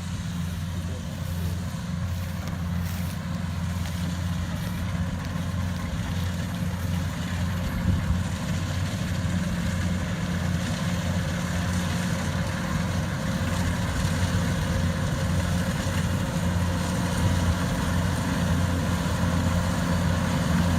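Engine of a rice harvesting machine running steadily, a continuous low drone that grows slightly louder toward the end.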